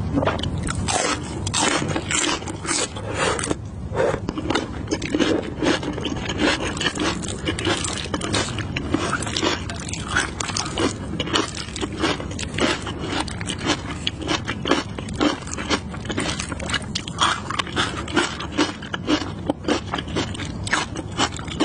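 Close-up eating sounds: crisp crunching bites and chewing of a raw cucumber, with wooden chopsticks scraping and clicking against a glass bowl of saucy noodles. Many quick crunches and clicks follow one another steadily.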